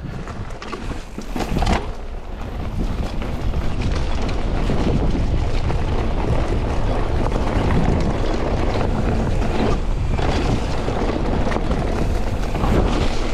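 Wind buffeting the microphone while riding a mountain bike down a dirt trail, with tyres rolling over the ground and a few brief knocks from the bike.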